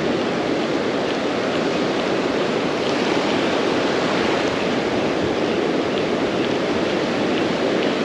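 Ocean surf breaking and washing up the beach, a steady, loud rush.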